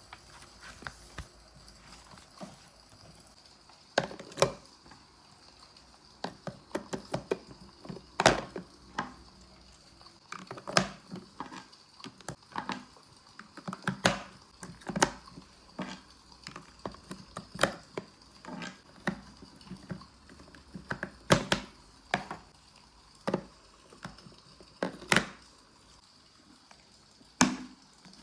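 Food preparation and handling: irregular sharp knocks and clicks, several loud ones spaced a second or two apart, with quieter taps between them.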